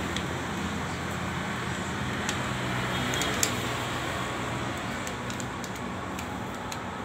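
Steady background hum, with a few faint crinkling clicks from a thin aluminium drink-can strip being folded by hand.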